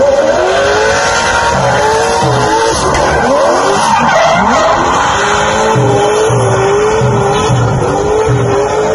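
Nissan 200SX (S14) with a turbocharged Toyota 1UZ-FE V8 drifting: the engine note rises and falls with the throttle while the rear tyres squeal and smoke.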